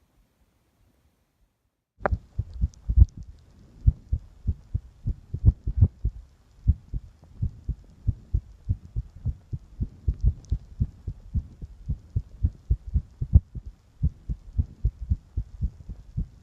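Human heartbeat picked up from the chest: a quick, steady run of deep thumps in lub-dub pairs, starting about two seconds in.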